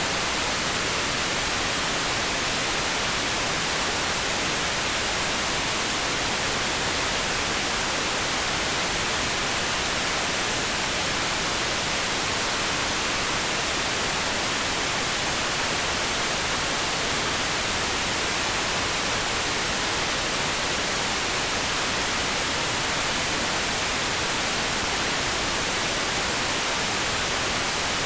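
Steady pink noise: an even, unchanging hiss at constant level.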